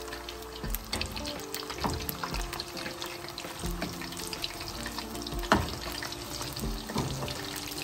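Batter-coated chicken pieces frying in hot oil: a steady sizzle full of small crackling pops, with one sharper click a little past halfway.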